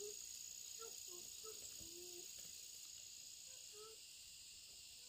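Faint steady insect chorus: a continuous high trill with one bright steady pitch, with scattered faint short chirps lower down.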